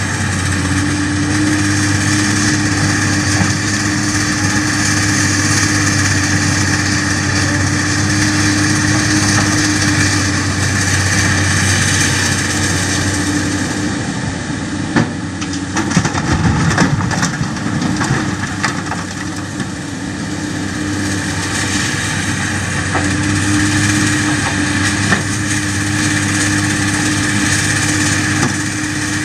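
Excavator's diesel engine running steadily as it works, with a steady hum. About halfway through comes a burst of knocks and rushing noise.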